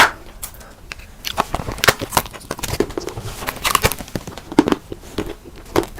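Close-miked eating sounds: irregular crunching and crackling snaps of food being bitten and chewed, with a sharp click at the start.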